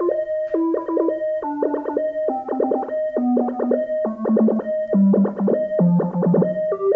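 Synthesizer arpeggio: a fast repeating run of short synth notes over a held tone, driven by an arpeggiator/step sequencer. The low note of the pattern steps down in pitch about once a second.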